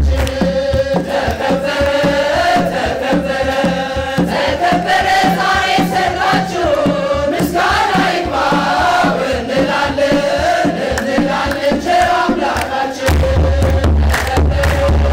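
A group singing an Ethiopian Orthodox wedding hymn, backed by a kebero drum beaten by hand and rhythmic handclapping.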